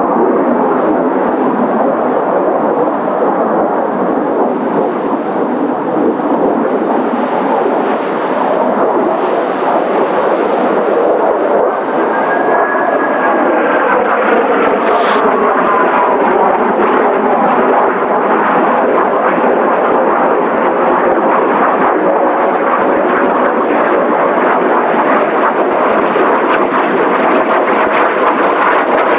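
Steady jet noise from Blue Impulse Kawasaki T-4 trainers, each with twin F3 turbofans, as they fly a 720-degree turn in formation. A faint whine bends in pitch about halfway through as the jets move past.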